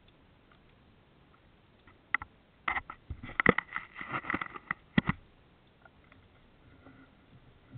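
A burst of sharp clicks and knocks underwater, lasting about three seconds and ending in a louder double knock about five seconds in.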